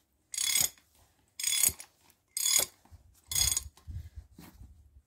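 A ratchet wrench ratcheting on the forcing screw of a wheel bearing press tool, four short clicking bursts about a second apart, then a few softer knocks. The screw is drawing a new wheel bearing the last of the way into the steering knuckle.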